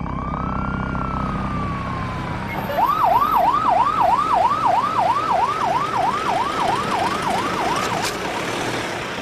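Ambulance siren: one slow rise and fall in pitch, then a fast yelp of about three rapid up-sweeps a second that lasts about five seconds and fades near the end.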